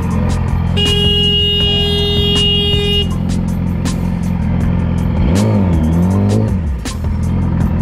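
A motorcycle engine idling steadily. A horn sounds one steady note for about two seconds near the start. About five seconds in, the engine is revved in two quick blips, its pitch rising and falling.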